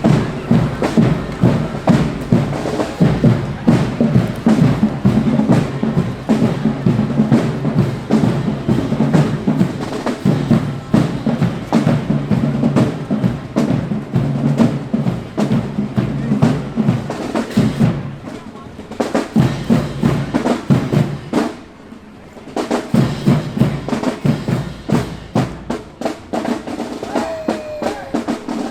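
Marching band playing: snare and bass drums beat a dense, steady rhythm under sustained low brass. The band drops off briefly twice, about two-thirds of the way through and again a few seconds later, before the drums come back in.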